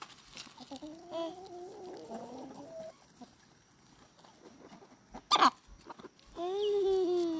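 Chicken calling in long, wavering drawn-out notes, with one short sharp sneeze about five seconds in, the loudest sound.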